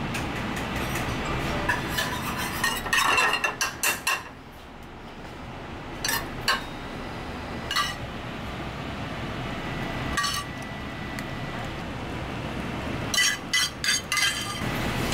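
Dishes and utensils clinking in a kitchen: sharp, ringing clinks in short clusters, the busiest runs about three seconds in and near the end, over a steady background hum.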